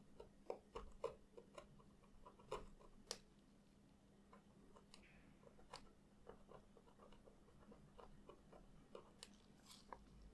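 Faint, irregular small clicks and scratches of a hobby blade scraping the solder mask off a copper trace on a circuit board.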